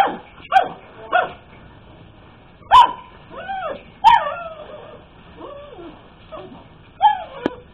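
Four-month-old pug puppy barking in short, high yaps, about five over the stretch, with quieter drawn-out yelps in between. A sharp click sounds near the end.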